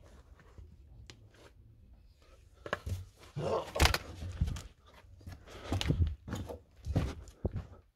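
Knocks, bumps and scraping rustles of someone squeezing through a narrow cellar entrance, starting about three seconds in after a quiet stretch, with the loudest knock a second later.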